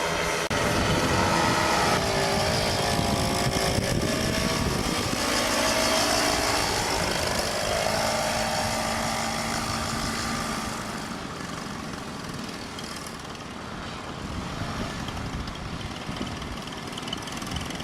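Paramotor engine and propeller running, the pitch of the engine wavering up and down with the throttle, then easing off and getting quieter about ten seconds in.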